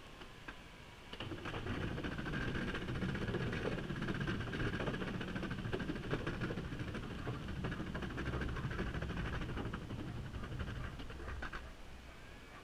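Electric skateboard wheels rolling over the wooden plank deck of a footbridge: a loud rumble with rapid clatter from the board joints. It starts about a second in and stops shortly before the end.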